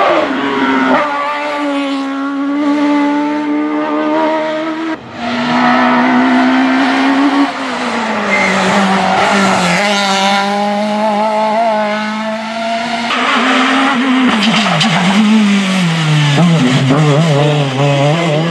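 Hillclimb race car engines running hard at high revs, several cars one after another with abrupt changes between them. The pitch climbs and drops as the drivers change gear and lift off the throttle.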